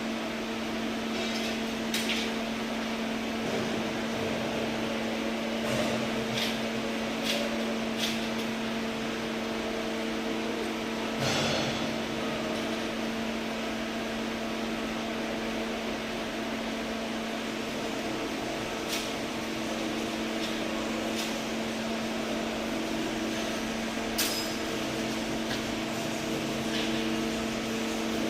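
Arc welding: a steady electrical hum with an even hiss and crackle over it, broken by a few sharp knocks.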